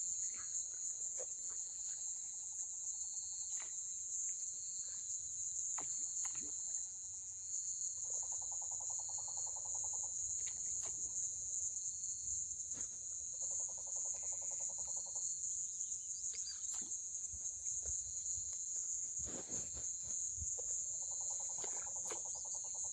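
Night insect chorus: a steady, high-pitched trilling with a faster pulsing beneath it. A lower, rapid trill comes in three times, about two seconds each, and there are scattered faint clicks.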